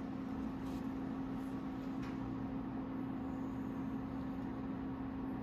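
Steady machine hum with a constant low tone under an even hiss, and a faint tick about two seconds in.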